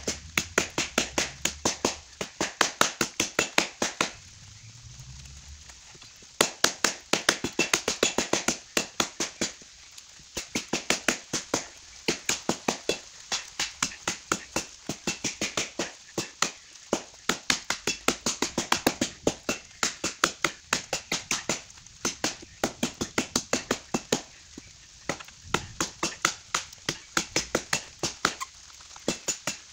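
Tramontina machete chopping into a fallen log: sharp strikes of the blade into wood, about two or three a second, stopping briefly about four seconds in and again around ten seconds.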